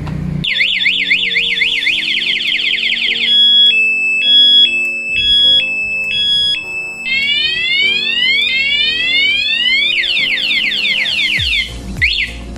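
Aftermarket motorcycle alarm siren set off by a light knock on the bike, its sensitive shock sensor tripped. It cycles through its tones: a fast up-and-down warble, then a two-tone high-low beep, then rapid rising sweeps and falling sweeps, and finally short chirps near the end.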